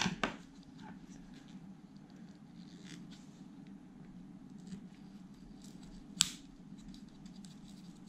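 Faint scratching and clicking of a plastic battery connector being worked at by hand where it is glued to the top of a sealed lead-acid battery, with one sharp click about six seconds in. A steady low hum runs underneath.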